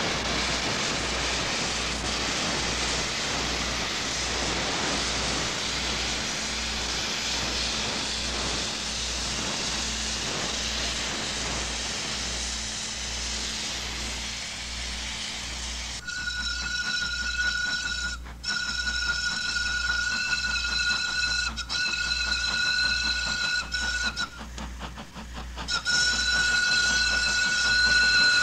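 Steam locomotive running with a steady hiss of steam. About halfway through its steam whistle starts, one steady high note held in long blasts, dropping out briefly twice and stopping for about two seconds before sounding again near the end.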